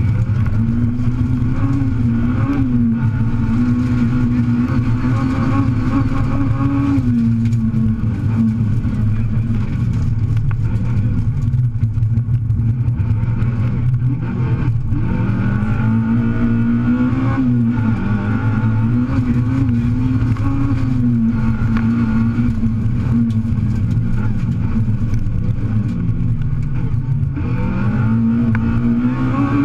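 Rally car engine heard from inside the cabin, its note climbing and dropping again and again as the car accelerates and eases off through the stage, over a constant low drone.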